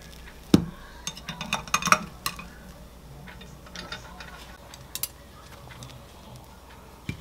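Tongs clicking and knocking against a stovetop waffle iron as a cooked waffle is lifted out: a sharp knock about half a second in, a quick run of light clicks over the next second and a half, then a few scattered ticks and a knock near the end.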